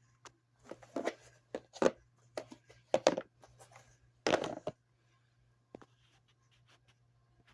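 Handling noise from a DeWalt drill bit set: a run of clicks, knocks and short rustles for about four seconds, then only a few faint ticks.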